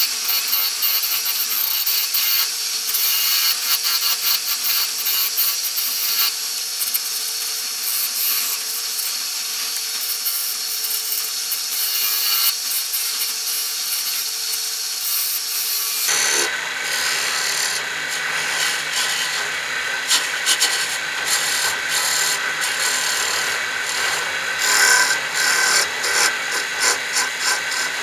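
Wood lathe turning a dark hardwood box while a hand-held turning tool cuts into the spinning piece, giving a steady hiss of shavings coming off. About two-thirds of the way through the sound shifts to a rougher, uneven scraping with a low hum underneath.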